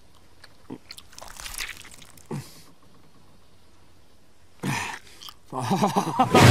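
Wet biting and chewing on a raw, bloody fish heart: several short, separate bites. Near the end a louder sound swells up quickly.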